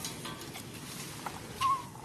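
A baby macaque gives one short, high, wavering squeak about three-quarters of the way in, over a steady background hiss.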